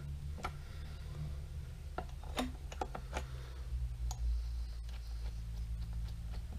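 Light metallic clicks and taps of hand tools on a lathe's tool post and tool holder while the tool height is adjusted, a handful of them at uneven intervals. A low steady hum runs underneath.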